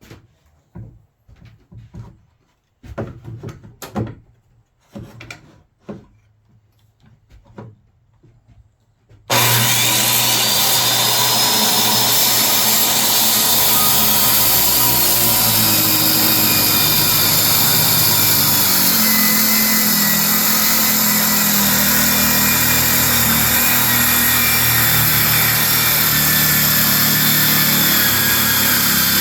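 Scattered knocks and clicks of handling for about nine seconds, then a circular saw starts abruptly with a rising whine and runs steadily, cutting through an ash table leaf along a zero-clearance track jig.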